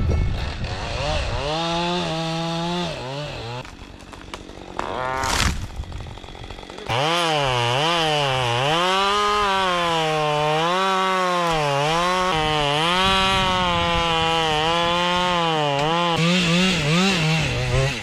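Two-stroke chainsaw revving while cutting firewood, its pitch repeatedly dipping under load and climbing back. It eases off for a few seconds around the fourth second, then runs hard and steadily again from about seven seconds in.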